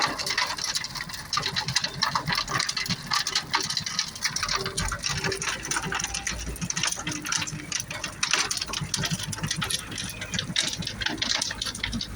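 Mobile star screen running: a dense, continuous clatter and crackle of material tumbling over the rotating star deck, with a low engine hum underneath.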